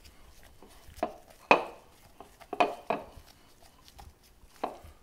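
A few light knocks and taps of a ceramic pie dish on a stone countertop as a pie crust is pressed into it by hand. The clearest knock comes about a second and a half in, with a couple more close together a little later.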